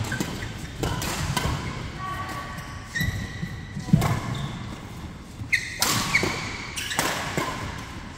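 Badminton rally: sharp racket-on-shuttlecock hits about once a second, with sneakers squeaking on the court mat and voices in the background, ringing in a large hall.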